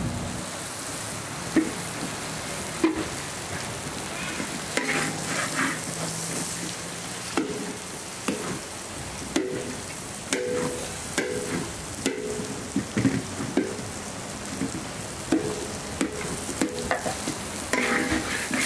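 A metal ladle scrapes and knocks against a large wok while belacan (shrimp paste) and lemongrass fry with a steady sizzle. The sharp knocks come more often in the second half, and some leave a short metallic ring.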